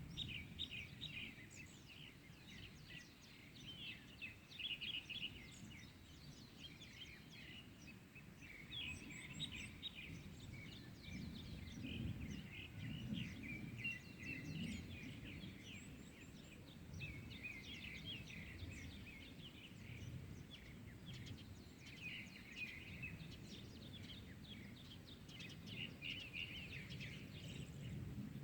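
Several small birds chirping and twittering, with short calls and trills overlapping almost without pause, over a steady low rumble of background noise.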